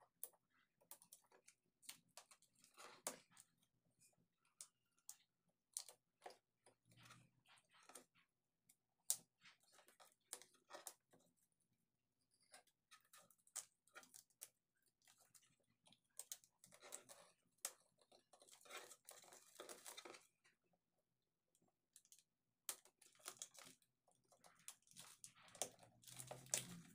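Faint crinkling and scratching of plastic shrink wrap being slit with a hobby knife and peeled off a box by hand, with many scattered sharp clicks; the crinkling is heaviest about two thirds of the way through and again near the end.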